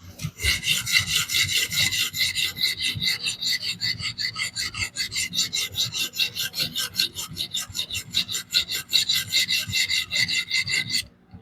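Diamond sharpening plate on a fixed-angle sharpener scraping back and forth along a DC53 steel knife edge in rapid, even strokes, about five or six a second. The plate is a 400-grit one, refining the scratch pattern left by a coarser plate. The strokes stop shortly before the end.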